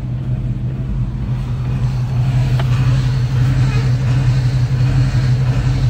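Dodge Ram Daytona's Hemi V8 idling with a steady hum while the steering is turned, with faint squeaks from the worn lower ball joints.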